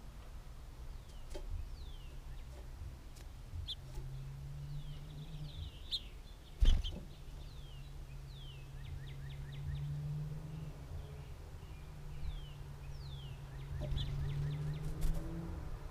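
Wild songbirds calling at a feeder: short, sharp down-slurred chip notes repeated throughout, with two quick runs of rapid ticking calls. A single sharp thump comes near the middle, over a steady low hum.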